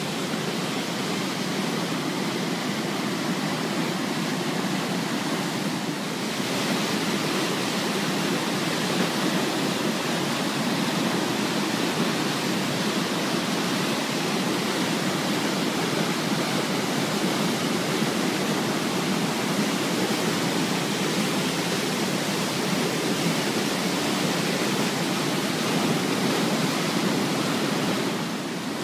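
River in flood pouring over a weir: a steady rush of churning water that grows brighter and slightly louder about six seconds in.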